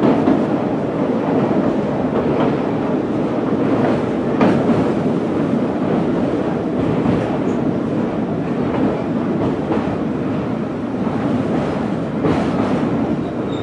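Passenger train coach running at speed over a river bridge: a steady loud rumble of wheels on rails, with a few sharper clacks from rail joints.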